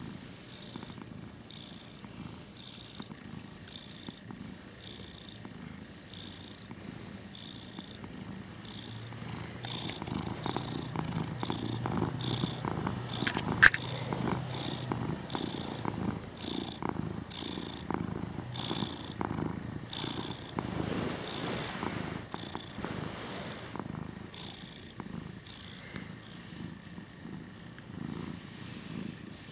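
Russian Blue cat purring steadily while being massaged, the purr swelling and easing with each breath about once a second and growing louder about a third of the way in. A single sharp click near the middle.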